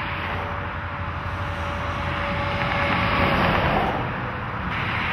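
A semi-trailer truck passing close on a highway. Engine and tyre noise with a thin steady whine builds to its loudest about three seconds in as the truck goes by, then falls away.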